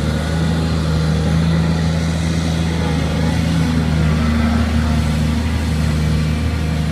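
Truck engine running steadily at an even low pitch.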